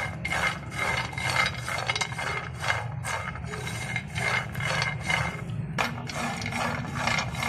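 Silicone spatula scraping and stirring whole almonds and walnut halves around a dry nonstick frying pan, about two strokes a second, the nuts rattling as they are pushed. The nuts are being dry-roasted until crisp. A steady low hum runs underneath.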